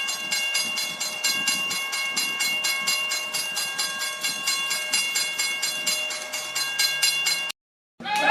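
Train sound effect: a fast, even clickety-clack of wheels over rail joints with steady whistle-like tones, cutting off abruptly near the end.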